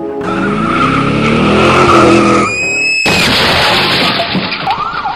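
Car sound effects: a speeding car, its engine note rising, then a brief high tyre screech, a sudden rush of noise, and a siren starting to wail near the end.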